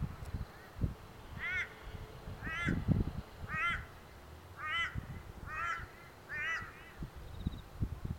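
A bird calling six times, about a second apart, each call a short note that rises and falls in pitch, over low, irregular rumbling and thumps.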